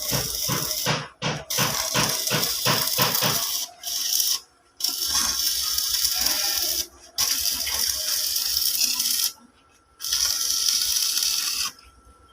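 Electric stick welding: the arc sizzles and crackles in several runs of a few seconds, each breaking off sharply as the arc is stopped. During the first three or so seconds the sizzle pulses evenly, about three times a second.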